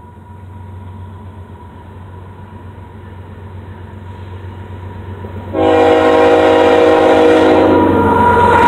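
An approaching Canadian National GE ET44AC diesel locomotive, its low rumble building steadily as it nears. About halfway through, its multi-chime air horn sounds one long, loud chord lasting about three seconds.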